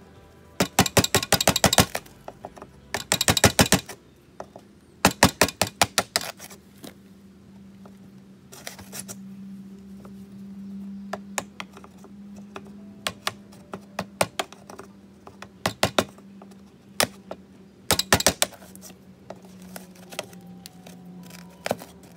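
Power drill boring a larger hole through the wall, heard as several short bursts of rapid clicking and rattling, with single clicks and a low steady hum in between.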